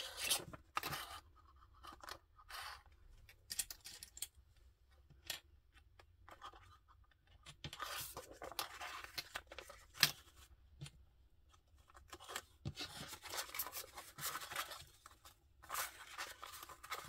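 Thin overhead-projector transparency film and paper crinkling and rustling as they are handled and folded, in irregular spells, with a few sharp clicks.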